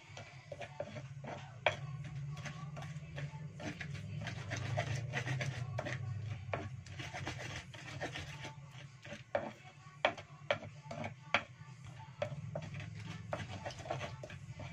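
Pestle grinding chili spice paste in a shallow cobek mortar: a gritty rubbing and scraping of the pestle against the mortar, with irregular sharp knocks, the loudest a few close together about ten seconds in.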